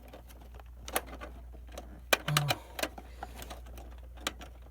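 Scattered sharp clicks and taps of plastic and metal parts being handled as an IDE ribbon cable is worked onto its port inside a computer case, over a steady low hum.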